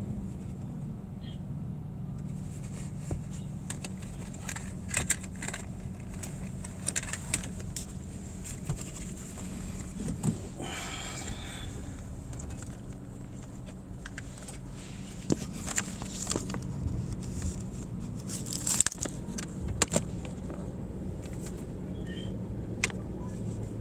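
Steady engine hum heard from inside a van's cab, with scattered light clicks, rattles and knocks throughout and a short hiss about ten seconds in.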